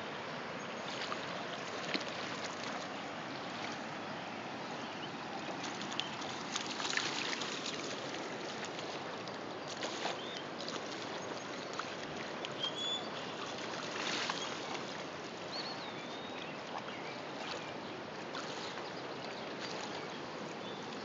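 A steady wash of river water lapping and flowing at the shoreline, with occasional short splashes as a pug wades through the shallows.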